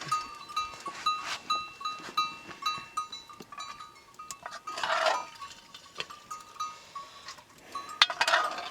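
Sheep bleating, with two louder calls about five and eight seconds in, over the repeated light clinking of small bells on the flock.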